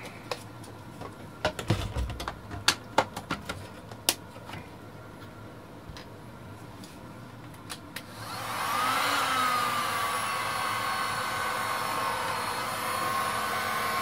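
Light clicks and knocks of things being handled on the bench, then about eight seconds in a hot air gun switches on and runs with a steady blowing rush, its whine jumping up as it starts, then sinking and steadying. It is heating freshly applied conductive silver paint on a rubber keypad to boil off the solvent.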